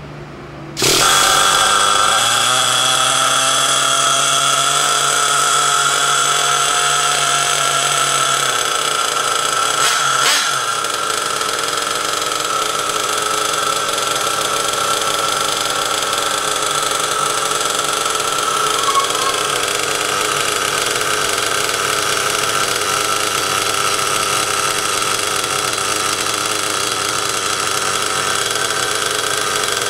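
Sirio .23 big-block nitro engine in an RC monster truck starting abruptly about a second in, then running at a steady idle, with a single sharp click about ten seconds in.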